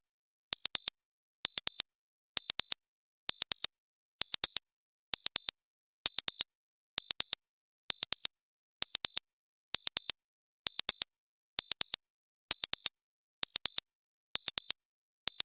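Countdown timer alarm: a simple high electronic double beep, beep-beep, at one steady pitch, repeating evenly a little faster than once a second.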